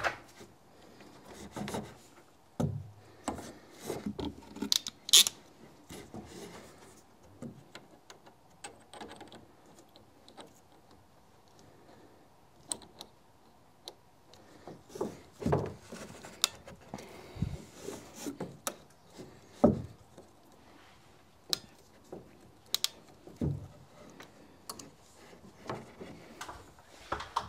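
Irregular clicks, knocks and rubbing as plastic PEX water tubing and a metal hand tool are worked against wooden ceiling joists, with a quieter stretch in the middle.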